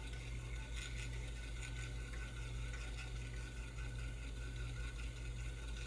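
An IBM 5150's 5.25-inch floppy drive whirring steadily as the DOS SYS command reads the system files off the boot disk, over the constant low hum of the computer's power-supply fan.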